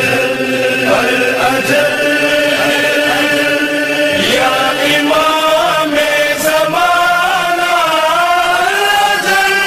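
Outro music of chanted singing, with long held notes that slide up and down in pitch.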